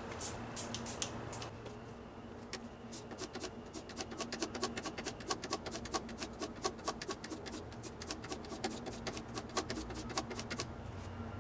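A spray bottle squirts a few times, then a Stanley No. 7 hand plane's cutting iron is rubbed back and forth on 1000-grit abrasive on a glass plate: a fast, even run of short scraping strokes, about four a second, that stops near the end. This is the final honing course, which brings the edge close to a mirror finish.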